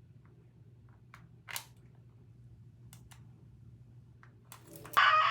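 A few faint clicks and taps over a low steady hum, then a loud, high-pitched scream breaks in near the end.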